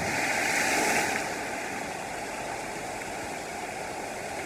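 Steady rush of flowing, falling water, a constant hiss that is louder for about the first second.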